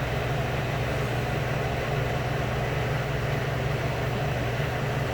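Two window air conditioners running at once, their compressors giving a steady low hum under the even rush of their fans.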